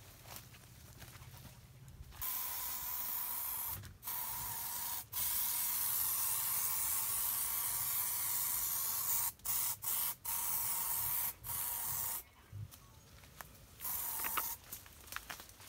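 Aerosol spray can hissing in long bursts with several brief breaks, then one short burst near the end, as medicine is sprayed onto an injured elephant's hide.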